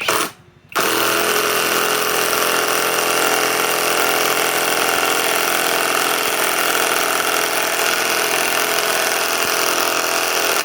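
Hercules HCB84B2 Gen 2 cordless compact 1/2-inch impact wrench driving a 2¾-inch lag screw. A brief trigger pull at the start, then one long continuous run of nearly ten seconds that stops abruptly.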